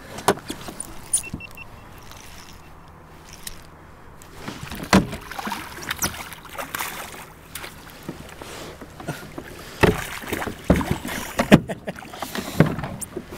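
Irregular knocks and clunks on a fishing kayak as rod and gear are handled.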